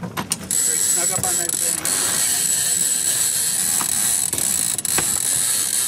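Sailboat winch ratcheting as a line is wound in, a dense, steady buzz that starts about half a second in.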